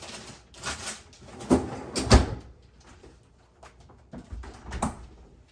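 Several separate knocks and clatters of objects being handled on a kitchen counter, the loudest two about a second and a half and two seconds in, with no motor running.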